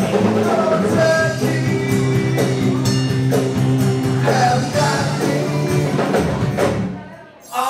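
Live band playing a song: a male lead singer with acoustic guitar, electric bass, congas and drum kit. Near the end the sound dips sharply for a moment before the music resumes.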